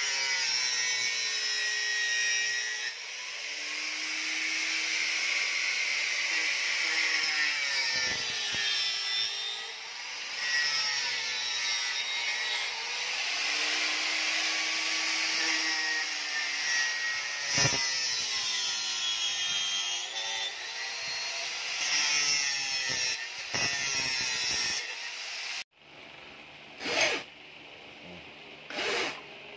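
Handheld angle grinder with a cut-off disc cutting through a rubber tire and its steel, its pitch dipping and rising as the disc bites and frees. About 26 seconds in it stops suddenly, and a few sharp knocks follow.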